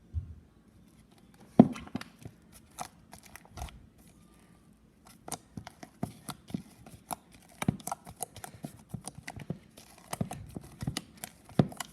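Thick cream cheese slime being squished and poked by hand, giving irregular sticky clicks and pops that start about a second and a half in and come thicker in the second half.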